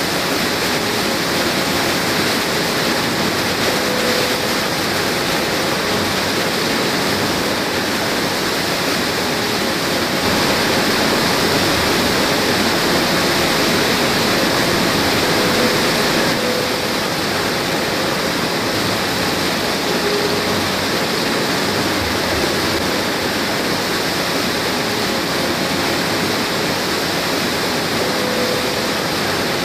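Sand washing plant running: a steady rush of water and sand slurry pouring through the washing and dewatering equipment.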